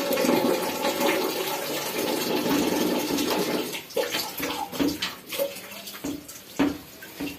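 Wet water sounds as hands work shampoo into a soaked Persian kitten's fur: a steady wash of water noise for about the first half, then a string of short wet rubbing sounds.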